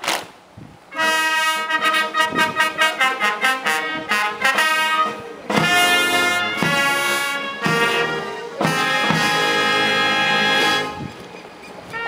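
Brass band playing a fanfare: quick repeated trumpet notes, then held brass chords, ending about eleven seconds in.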